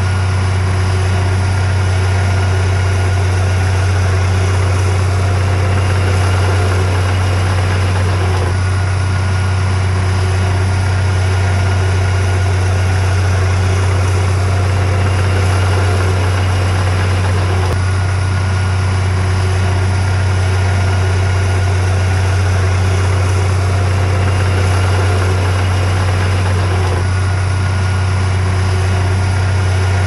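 Heavy diesel engine of earthmoving machinery running at an even, unchanging speed, with a deep steady drone.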